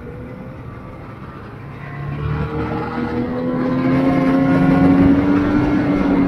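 Ski-Doo Expedition Xtreme snowmobile engine running, then speeding up from about two seconds in, its pitch rising gradually as it gets louder.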